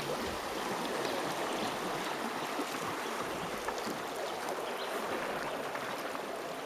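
River water flowing steadily past a raft, with a few faint ticks and splashes.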